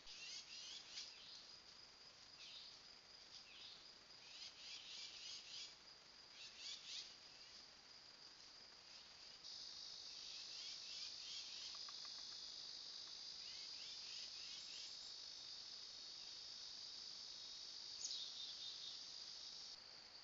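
Faint high-pitched insect chirping in short pulsed trills, typical of crickets. About nine seconds in, a steady high insect drone takes over with chirps over it, and a brief louder chirp comes near the end.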